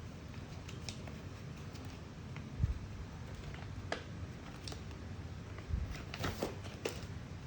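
Small handling noises of toy packaging: scattered light clicks and taps, with a dull low thump about 2.5 s in and another near 6 s in.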